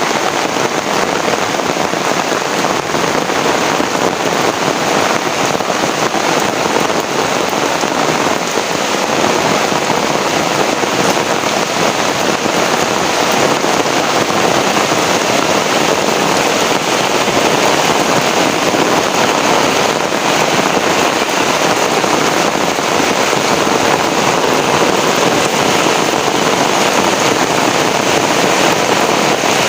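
Heavy rain pouring down steadily: a loud, even hiss of rain on surfaces.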